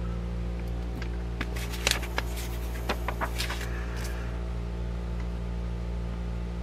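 Paper pages of a thick old book rustling and crackling as they are turned, a quick cluster of crisp crackles between about one and a half and four seconds in, over a steady low hum.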